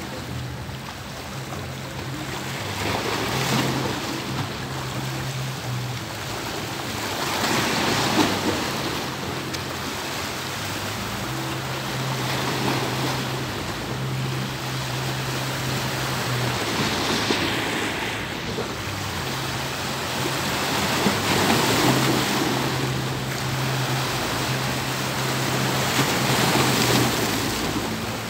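Gentle sea waves washing in, swelling and fading about every four to five seconds, with a low steady hum underneath that comes and goes.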